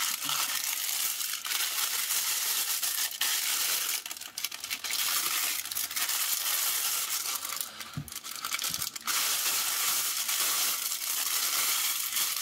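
Tissue-paper wrapping crinkling and rustling as it is pulled open by hand and then crumpled and folded up. The crinkling is continuous, with short lulls about four and eight seconds in.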